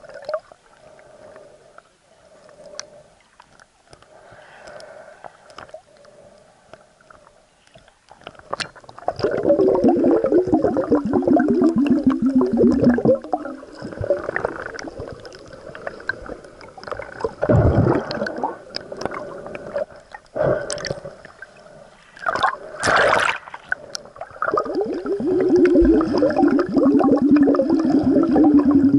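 Water gurgling and bubbling around a camera held underwater. Quiet at first, then two loud spells of several seconds each, the bubbling falling in pitch, with a short sharp splash between them.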